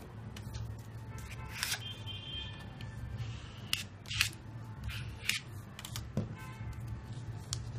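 Origami paper being folded and creased by hand: several sharp paper crackles and rustles, with a card scraped along a fold to press the crease flat.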